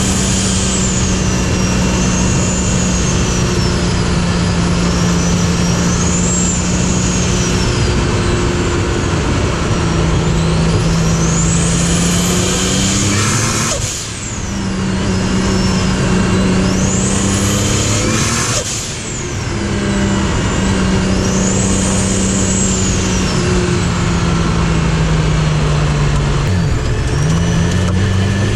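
Single-turbo 2JZ inline-six in a Nissan 240SX running hard at steady revs, with a high turbo whistle rising and falling over the engine note. The engine note drops away briefly twice, about halfway and two-thirds through, then picks up again.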